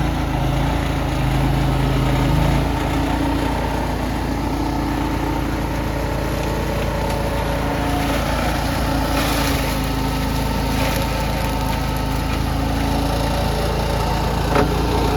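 Skid steer engine running steadily, its note dropping a little about two and a half seconds in, with a brief hiss midway and a sharp click near the end.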